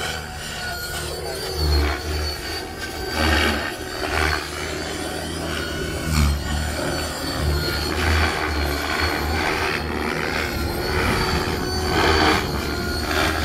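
KDS 600-size radio-controlled helicopter flying aerobatics overhead: rotor blades whooshing and the drivetrain whining, rising and falling in loudness as it manoeuvres. Wind rumbles on the microphone.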